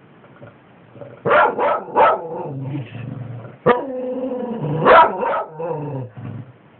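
Lagotto Romagnolo barking at its own reflection in a mirror: three quick sharp barks about a second in, then low growling broken by two more sharp barks.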